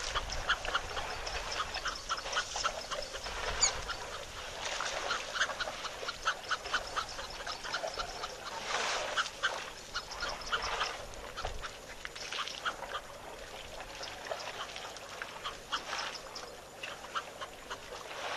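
Ducks calling: a busy string of short, quick calls from several birds, overlapping throughout.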